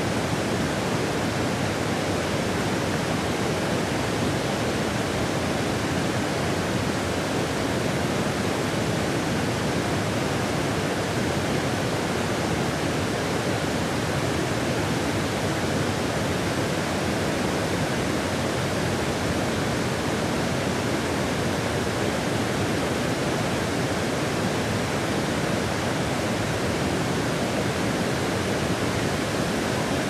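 Fukiware Falls on the Katashina River: a steady, unbroken rush of water pouring over a wide rock ledge, running at fairly low flow.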